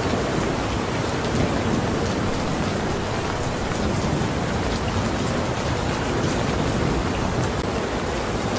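Steady heavy rain falling and pattering on surfaces, with many individual drops ticking close by.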